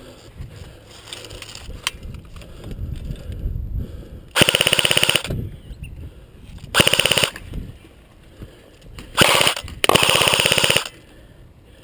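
Airsoft guns firing on full auto: four short bursts of rapid, evenly spaced shots, the last two close together near the end.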